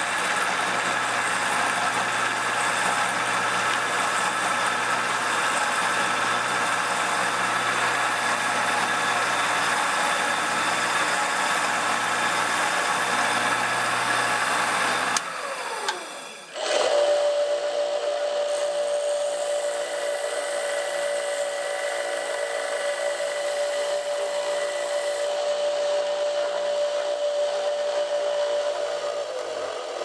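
Power drill boring into a black cast-resin knob clamped in a metal vise, the motor running steadily. About halfway through it winds down and stops briefly, then starts again and runs with a steady whine.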